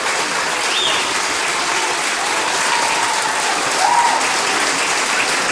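A large crowd clapping steadily, with a few voices calling out over the applause.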